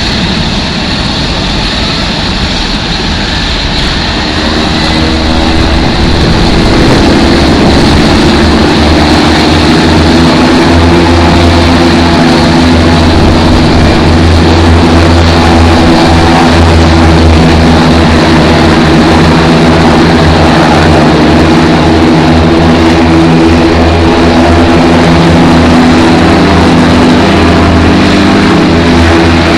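Embraer T-27 Tucano turboprop engines running with a steady propeller hum. They grow louder over the first several seconds, then hold at a loud, even level.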